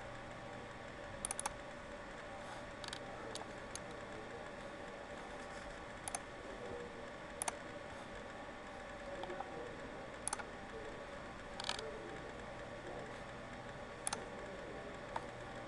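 Computer mouse clicking now and then, about ten clicks, some in quick double-click pairs, over a steady faint background hum.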